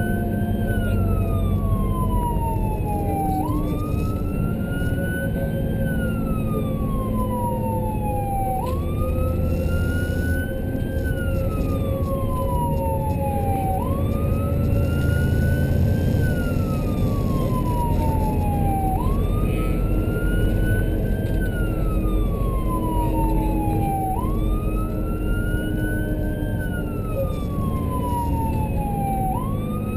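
Emergency vehicle siren in wail mode, rising quickly and falling slowly about every five seconds, over engine and road noise heard from inside the responding vehicle.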